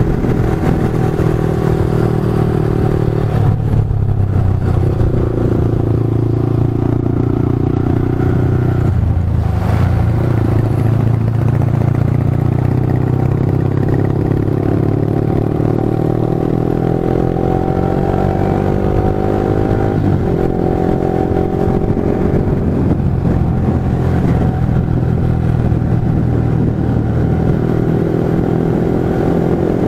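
Yamaha R15 V3's single-cylinder engine running under way, its pitch climbing steadily for about ten seconds in the middle and dropping suddenly a few times as it shifts gear.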